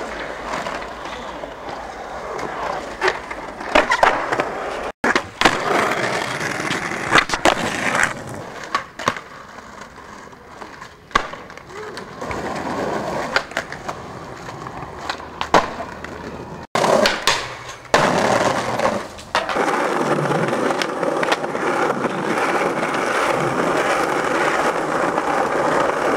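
Skateboards rolling on pavement, with sharp clacks of the board popping and landing. The sound breaks off abruptly twice, and the last few seconds hold loud, steady rolling.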